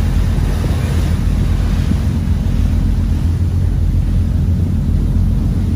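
A boat underway: its engine runs steadily, low and loud, with wind buffeting the microphone and water rushing past the hull.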